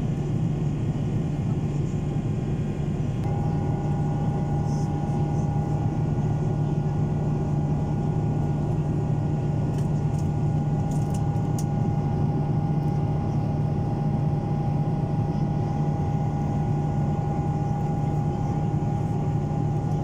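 Steady cabin noise of a jet airliner in cruise, heard at a window seat beside the wing's turbofan engine: a constant low hum and rushing roar, with a thin steady whine that comes in about three seconds in.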